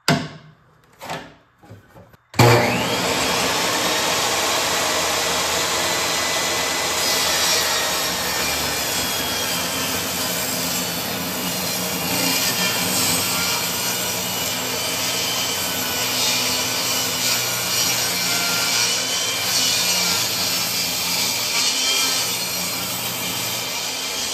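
Ryobi benchtop table saw ripping a thick pallet board lengthwise along the fence. The sound cuts in suddenly about two seconds in, then runs steadily as the blade cuts through the wood.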